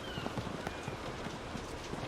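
Steady rain with many separate heavy drops tapping against a window pane.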